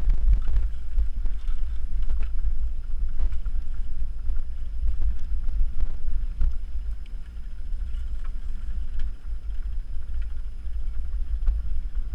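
Heavy wind rumble on the microphone of a bicycle riding along a rough grassy field track, with irregular knocks and rattles as the bike jolts over the bumps.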